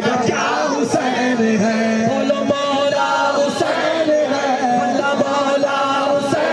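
A group of men chanting a devotional song in unison through microphones, with the surrounding crowd singing along.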